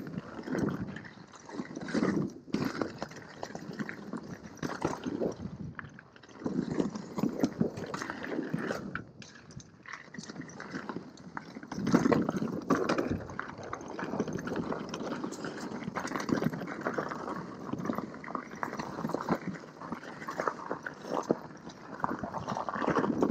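Mountain bike riding down a dirt singletrack: tyres rolling and scrabbling over dirt and roots, with irregular rattles and knocks from the bike over bumps, heard through a helmet-mounted camera's microphone.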